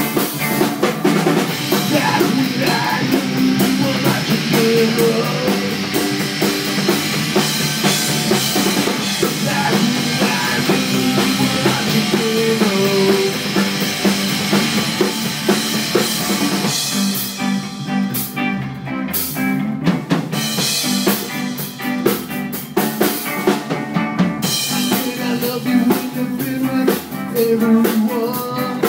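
Punkabilly band playing live: electric guitars, upright bass and drum kit, with several brief stops in the playing a little past the middle.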